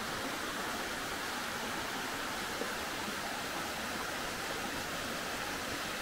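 Steady rush of water running over the rocks of a small creek, an even hiss with no breaks.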